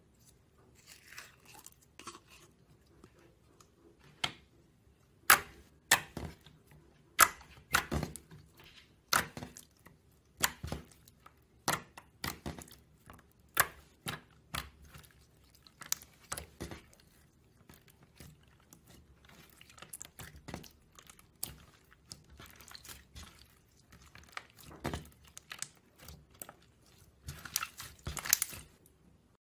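Glossy slime being stretched, pressed and folded by hand, giving sharp wet pops and clicks about one or two a second, loudest in the middle. Near the end a denser crackling squelch as the slime is squeezed into a ball.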